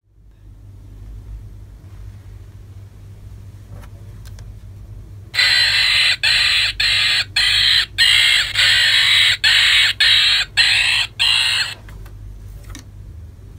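GUND Talkiez monkey plush toy playing its recorded monkey call through a small built-in speaker at the press of a button: a loud run of about ten short calls broken by brief gaps, lasting some six seconds from about five seconds in. A low steady hum runs underneath.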